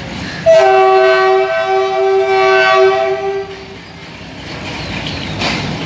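Pakistan Railways diesel locomotive's horn sounding one long, loud blast of about three seconds, followed by the locomotive's engine and the wagons rolling in slowly.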